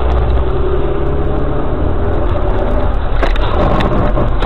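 A car's engine and road noise from inside the cabin as it drives along, a steady low rumble. About three seconds in, a run of sharp clicks or knocks begins.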